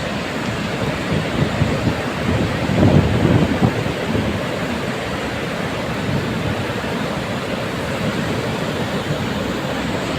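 Flash-flood water rushing in a steady, dense wash, with deeper rumbling that swells briefly about three seconds in.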